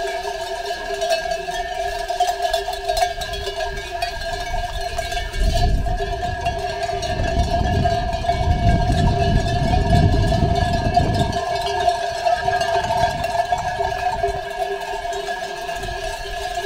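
Many bells on a passing flock of sheep ringing together in a continuous jangle, with a low rumble from about five to eleven seconds in.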